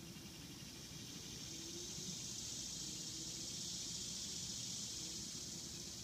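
A cicada's buzzing song, swelling up about a second in and fading away near the end.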